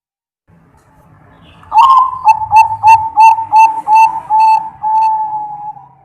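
Zebra dove (perkutut) singing its cooing song, starting just under two seconds in. It gives a quick run of about eight short rolling coos, about three a second, and ends in one longer drawn-out note.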